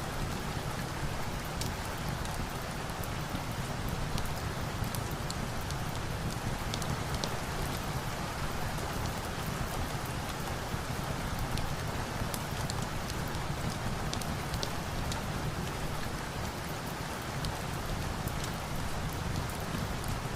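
Steady rain falling, an even hiss and patter, with scattered small sharp crackles of a log fire mixed in.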